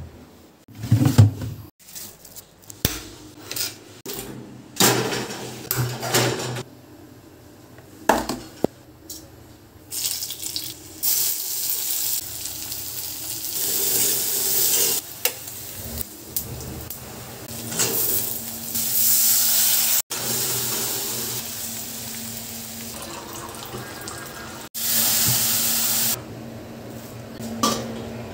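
Home kitchen cooking sounds: a run of short knocks and clatters of utensils and containers, then a long steady hiss lasting over ten seconds, louder for a moment near the end, with a few more clatters.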